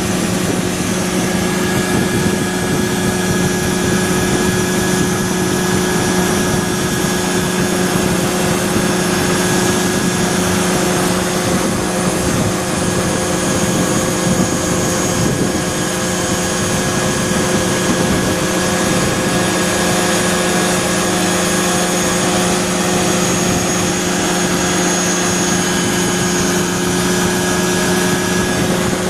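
ASAP Beaver SS ultralight aircraft's engine and propeller running steadily at constant power, a loud even drone with a low hum over a wide rushing haze.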